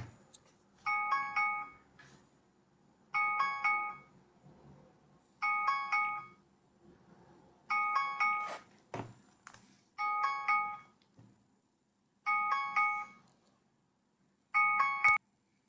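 Meizu Note 8 smartphone alarm ringing: a short chiming tune repeated seven times, about every two seconds, then cut off near the end. Two sharp clicks, one at the very start and one about nine seconds in.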